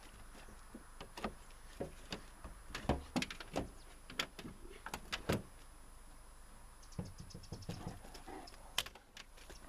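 A Great Dane's paws and claws knocking and scraping on a Citroën van's metal sliding side door as it paws at the door handle: scattered sharp knocks and clicks, with a quick run of light ticks about seven seconds in.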